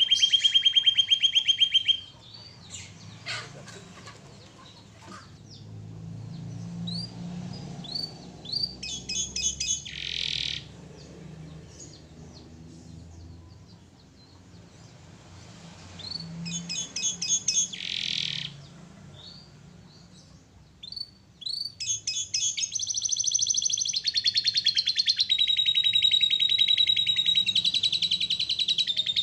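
Domestic canary singing: short bursts of rapid trills and chirps separated by pauses, then a long, unbroken trilling song from about two-thirds of the way through.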